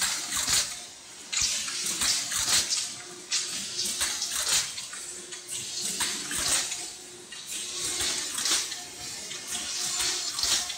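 Automatic can body forming and welding machine running, with irregular bursts of hiss-like noise about once a second over a faint steady hum.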